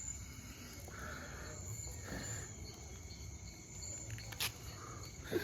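Faint, steady high-pitched insect trilling, with a single sharp click about four and a half seconds in.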